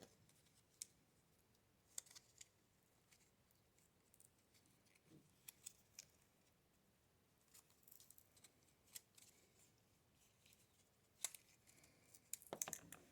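Mostly near silence, broken by sparse faint clicks and taps of batteries being handled and pried out of their packaging, with a quick run of clicks near the end.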